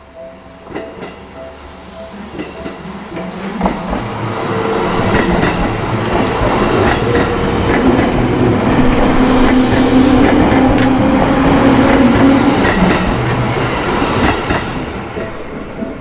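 Seibu Sayama Line electric train passing through a level crossing: it grows louder, is loudest in the middle and fades away, with the wheels clacking over rail joints. The crossing's electronic warning bell keeps ringing, clear at the start and again near the end when the train noise drops.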